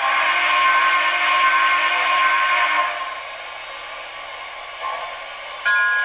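An MTH O-scale model steam locomotive's onboard sound system sounding a steam whistle through its small speaker: one airy blast of about three seconds.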